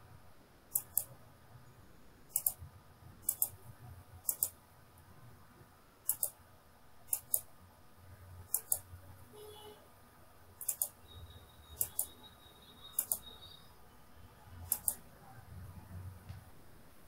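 Computer mouse clicking: about a dozen sharp clicks, most in quick pairs, at uneven intervals, over a faint low hum.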